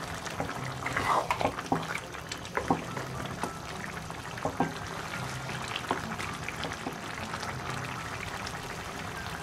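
Wooden spatula stirring a thick bottle gourd and fish curry in a metal pot, with irregular scrapes and knocks against the pan, most of them in the first few seconds, over a wet, simmering sound.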